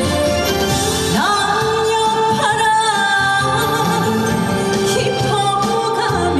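Korean trot song performed live: a woman singing over the backing music, with a sliding rise into a note about a second in and held notes with vibrato.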